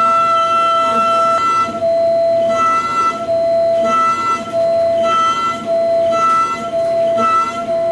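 Pocket NC v2-50 desktop mill's spindle and end mill roughing 6061 aluminium: a loud, high whine, steady at first, then breaking off and returning about twice a second from about a second and a half in.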